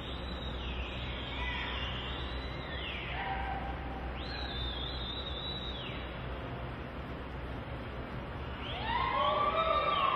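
Spectators whistling during a reining run: long whistles that rise and fall, several in the first half, then whoops and yells near the end, the loudest part, over a steady low arena hum.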